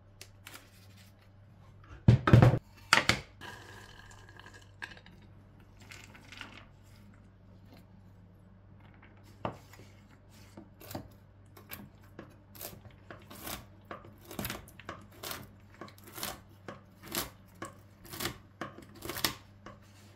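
Knife chopping nuts on a wooden cutting board: a sharp knock with each cut, about once a second through the second half. Earlier, about two seconds in, come two loud thumps.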